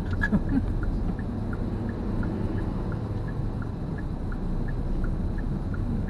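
Steady engine and road noise inside a moving car's cabin, with the turn-signal indicator ticking evenly about three times a second as the car goes round a roundabout.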